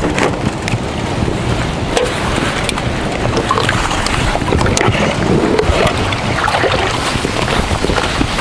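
Strong wind buffeting the microphone on open water ahead of a thunderstorm, with scattered knocks and rustles of fishing gear and bottles being picked up and packed away.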